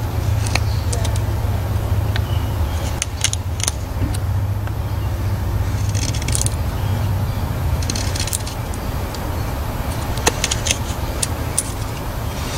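Blind Horse Knives Bushcrafter knife carving a notch in a wooden stake: short scraping cuts come in clusters every couple of seconds over a steady low rumble.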